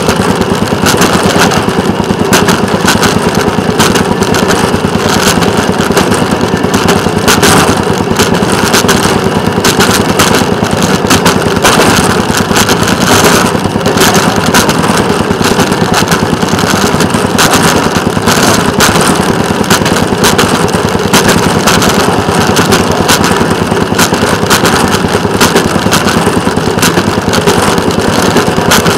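Small engine of a railroad motorcar running steadily with a fast, even firing beat as it travels down the track.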